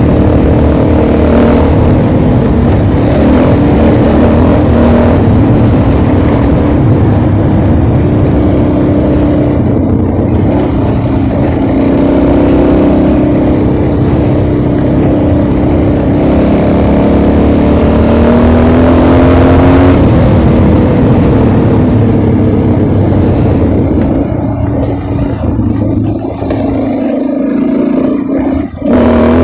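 Motorcycle engine running at speed under heavy wind noise on the microphone. The engine note climbs as it accelerates about two-thirds of the way through. Near the end the throttle briefly drops off, then the note rises again.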